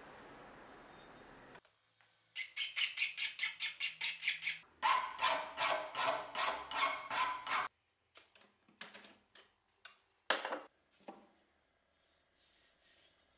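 Hand file scraping back and forth over the steel of a splitting-axe head clamped in a bench vise, in two runs of rapid, even strokes at about four a second. A few scattered knocks and taps of handling follow.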